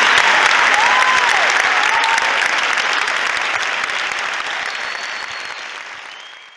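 Audience applauding, the clapping growing steadily quieter and fading out at the end. A single voice calls out briefly about a second in.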